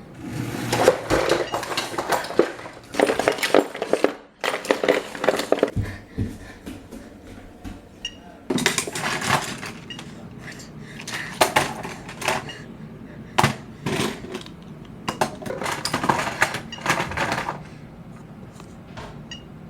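Household objects clattering and clinking in two long bursts of rapid knocks as someone rummages through things and tosses them about while searching. A faint short high beep sounds about eight seconds in and again near the end.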